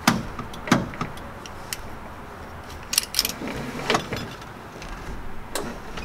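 A retrofitted three-point seat belt being buckled and tugged, giving a series of sharp metallic clicks and clacks from the latch plate and buckle, the loudest right at the start.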